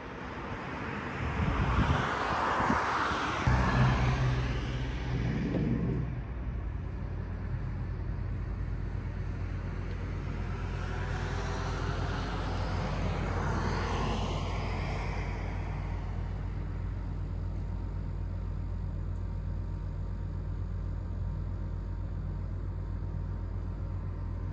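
Road traffic: two vehicles pass, one in the first few seconds and another about halfway through, each swelling and then fading. Under them is a steady low hum that sets in a few seconds in.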